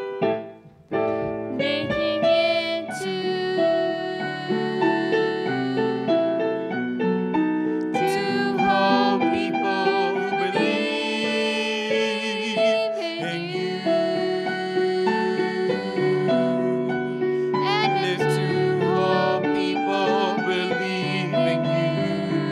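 A man singing a song into a microphone with piano accompaniment, the held notes sung with vibrato; the music drops out briefly about a second in, then carries on.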